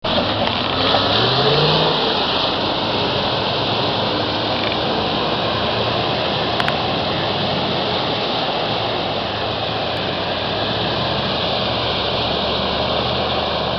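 4x4 SUVs wading through shallow flood water. An engine revs up, rising in pitch over the first two seconds, over a steady rushing noise.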